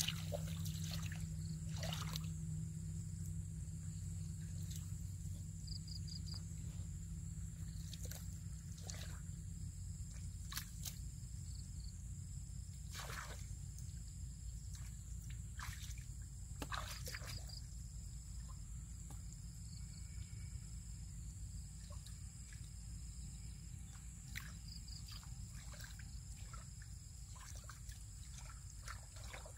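Shallow muddy water trickling and sloshing, with scattered small splashes and squelches from feet and hands working in wet mud. Underneath is a steady low rumble.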